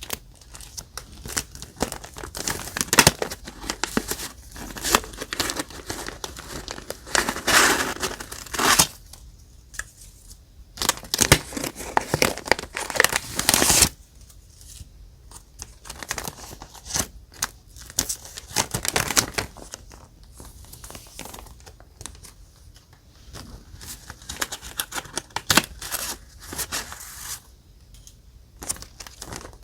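Paper die-cuts and journal pages being handled for scrapbooking, in irregular bursts of paper rustling with sharp clicks and brief quieter gaps.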